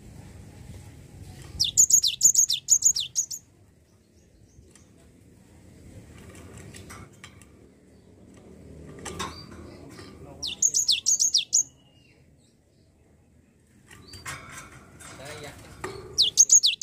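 Cinereous tit (gelatik batu) singing in three bursts a few seconds apart. Each burst is a quick run of four or five high notes, each note sliding down in pitch, and the last burst comes near the end.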